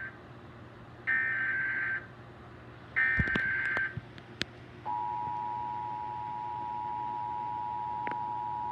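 Emergency Alert System test signal: buzzy bursts of digital SAME header data tones, each about a second long and a second apart, with a few clicks around the last one. At about five seconds in, the steady two-tone EAS attention signal starts and holds.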